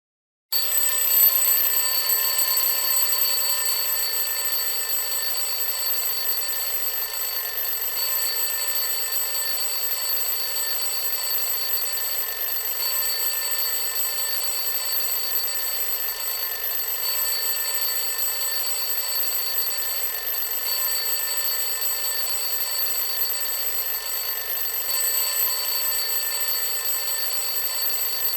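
Classic alarm clock ringing steadily without a break, starting about half a second in.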